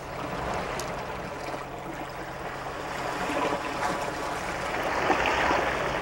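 Rushing water, a steady noise that swells a little about five seconds in.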